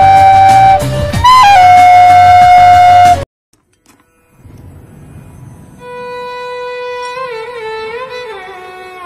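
A loud, held flute-like tone rises and falls in pitch about a second in, then cuts off abruptly after about three seconds. After a brief silence, soft instrumental background music with a violin-like melody of held, stepping notes comes in.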